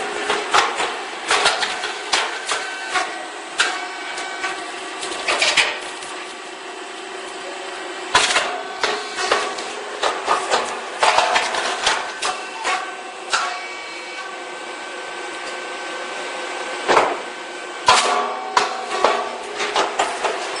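Puffed rice cake popping machine running: a steady mechanical hum with held tones under irregular clattering and sharp knocks, with two louder bangs near the end.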